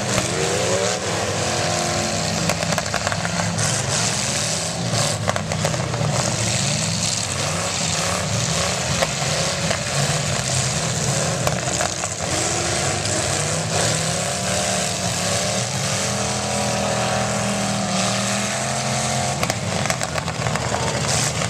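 Several demolition derby cars' engines running and revving at once, with sharp bangs of metal impacts as the cars ram one another scattered throughout.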